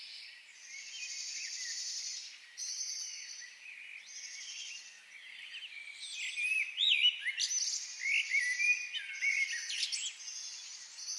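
Forest birds singing, with quick whistled and gliding notes that grow busiest and loudest in the second half. Under them an insect repeats a high, shrill buzzing trill in spells of a second or two.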